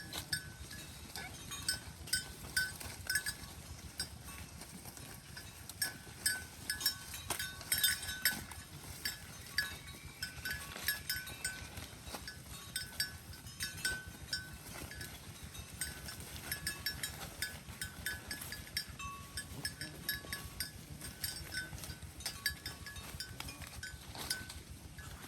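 Cattle chewing hay: a stream of irregular, crisp crunching and rustling.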